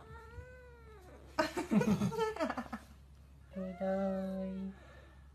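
Kitten calling three times: a faint arching meow at the start, a louder, rougher yowl about a second and a half in, and a steady held call near the end.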